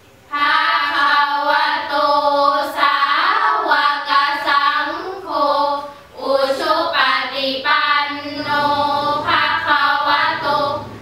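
A small group of girls chanting Sarabhanya, a melodic Thai Buddhist recitation, together in unison. The voices come in just after the start, break off briefly about six seconds in, and go on with the next phrase.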